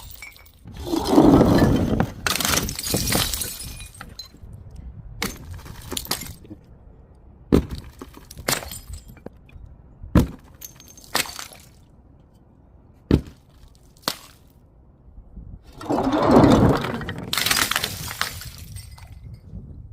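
Glass bottles breaking: two big crashes, about a second in and again near the sixteen-second mark, each followed by crackling shards, with single sharp clinks of glass pieces in between.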